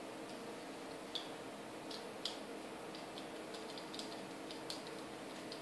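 Small screwdriver working the terminal screw of a plastic fluorescent-tube lampholder as a wire is refastened: scattered light ticks and clicks, the two sharpest about one and two seconds in, then a cluster of smaller ones.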